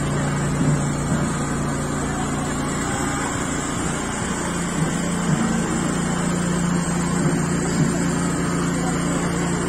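A steady engine-like hum running without change, with people talking in the background.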